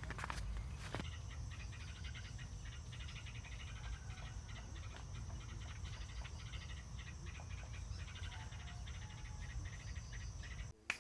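Insects chirping in rapid pulsing trains over a low steady rumble, with a few knocks in the first second.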